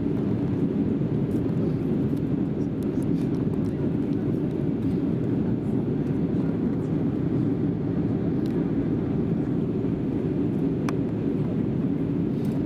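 Airbus A320 cabin noise during descent: a steady, low rumble of engines and rushing air heard from a window seat.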